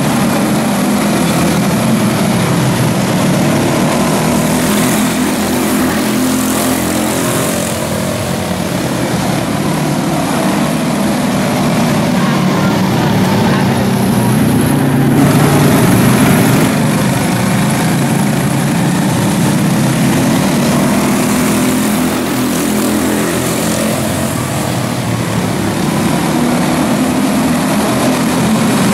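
A pack of quarter midget race cars with single-cylinder Briggs & Stratton Animal engines running together at racing speed. They make a steady, loud drone whose pitch rises and falls as the cars circle the track.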